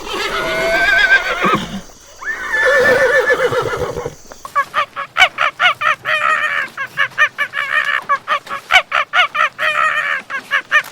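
Farm animal calls: two long quavering calls, then from about four seconds in a run of short, quick calls at roughly four a second.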